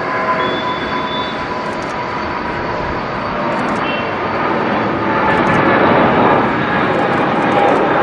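Boeing 777's twin jet engines at takeoff thrust through the takeoff roll and liftoff: a steady heavy rumble with a few steady whining tones, growing louder about five seconds in as the jet lifts off and climbs.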